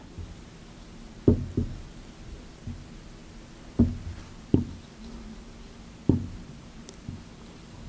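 Marker writing on a whiteboard: dull knocks as the marker tip strikes the board, about five of them, irregularly spaced a second or more apart.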